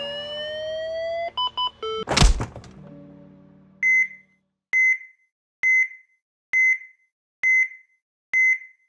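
Electronic outro sting: rising synthesized tones, a few short notes, and one heavy impact hit about two seconds in that rings out. Then comes a steady heart-monitor style beep, one short high tone a little under once a second, six times.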